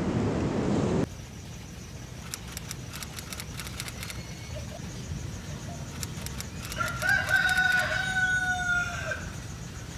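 A rooster crowing once, a long held call starting about seven seconds in and dropping in pitch at the end. In the first second, wind rushes on the microphone and cuts off suddenly.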